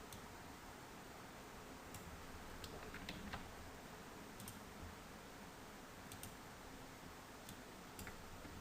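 Faint computer mouse clicks, about ten at irregular intervals over a low room hiss, as anchor points are placed with a pen tool.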